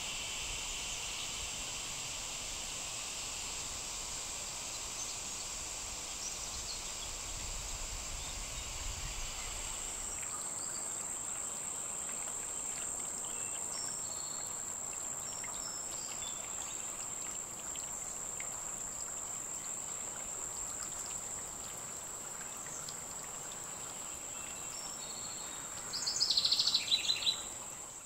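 Summer garden ambience: a steady high-pitched insect chorus, with a second, lower insect trill that stops about a third of the way in. Near the end a short run of rapid chirps is the loudest sound.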